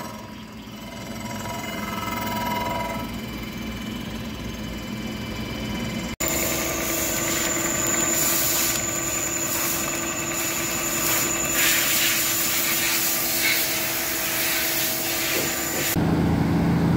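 A vertical milling machine running with its cutter at a metal workpiece, then, after a sudden change about six seconds in, a metal lathe turning with a steady whine as the tool cuts and chips pile up. In the last second a low vehicle engine takes over.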